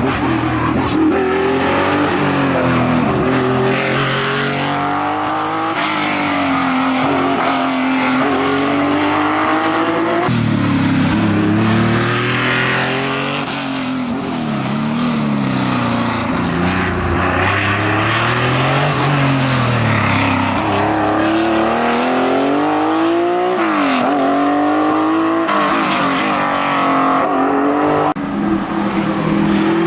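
Historic rally cars at full effort on a special stage: engines revving hard, the pitch climbing and dropping again and again through gear changes and braking. The sound changes abruptly about ten seconds in and again near the end, as one car gives way to the next.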